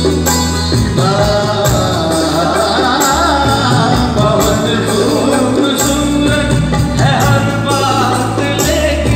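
A live band plays a song on drums, keyboards and electric guitar, with a male voice singing a melody over it.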